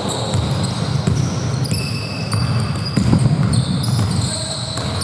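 Basketball game in a gym: the ball bouncing on the court, sneakers squeaking in short high chirps, and players' voices.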